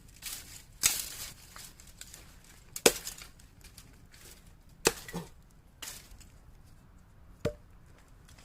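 Heavy chopping knife striking in sharp single chops, four strong blows about two seconds apart with a fainter knock between two of them.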